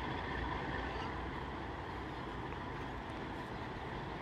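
Distant diesel locomotive running steadily as it approaches along the line, a low even rumble.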